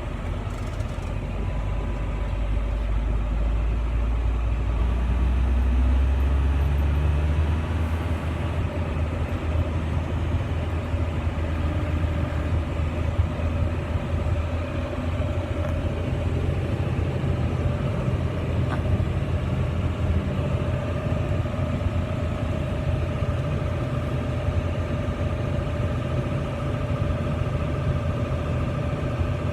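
John Deere 9220 tractor engine running steadily, heard inside the cab; about six seconds in the engine note rises and gets a little louder as it picks up speed.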